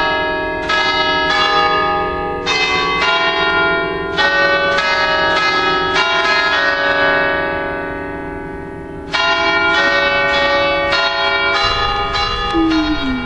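Church bells ringing, struck again and again at uneven intervals, each stroke ringing on. A little past halfway the strikes pause and the ringing fades away slowly, then the bells start again.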